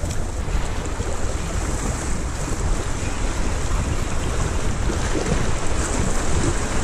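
Small sea waves washing and lapping over shoreline rocks, with wind buffeting the microphone as a steady low rumble.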